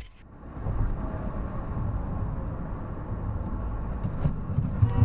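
Steady low rumble of a car driving along a road, engine and tyre noise heard from inside the cabin through a dashcam microphone.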